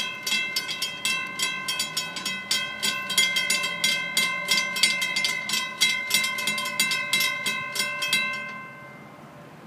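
Railroad grade-crossing bell ringing in rapid, even strokes while the crossing lights flash. It falls silent about eight and a half seconds in, with the gates down.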